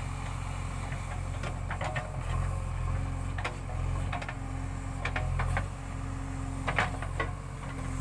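JCB 3DX backhoe loader's diesel engine running steadily under digging load, with several sharp knocks and clanks as the backhoe bucket scrapes through soil and stones.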